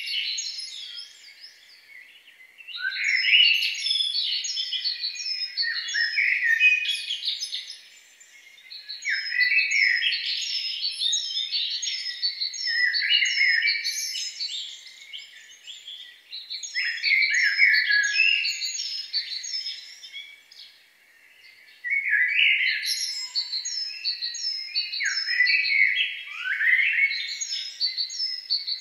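Birdsong: many small birds chirping and twittering in quick repeated high notes and falling sweeps, in bursts, with a short break about two-thirds of the way through before it comes back suddenly.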